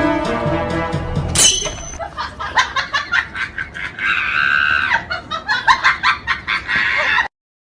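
Comic sound effect: a short high squeal, then a run of rapid, choppy cackling calls that cuts off abruptly near the end. It follows the tail of music from the previous effect.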